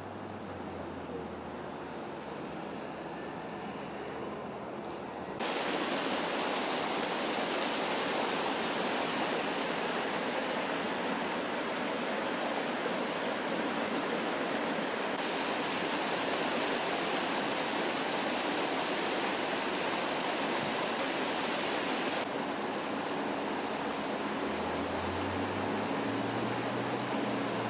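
Water from a burst pipe rushing and gushing across pavement and down a planted slope, a loud steady rush that starts abruptly about five seconds in. Before that there is only a quieter room sound with a low hum, and a low hum returns under the rushing water near the end.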